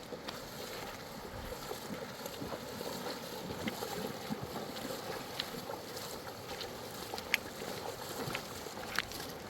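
A steady outdoor rush of water and wind, with scattered light clicks and knocks, the sharpest about seven and a half and nine seconds in.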